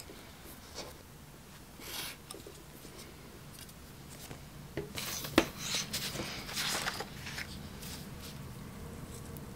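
Craft knife slicing through printed card paper along a steel ruler on a cutting mat: short scratchy cutting strokes near the start and about two seconds in. Then a cluster of scraping and tapping between about five and seven seconds, with one sharp click, the loudest sound.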